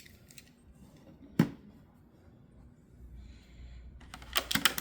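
Small die-cast toy cars being handled: one sharp knock about a second and a half in, then a quick cluster of clicks near the end.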